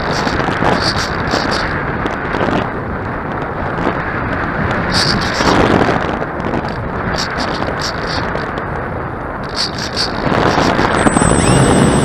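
Wind buffeting the microphone, a rough steady rush. Near the end a steadier hum with a high whine joins in and the level rises.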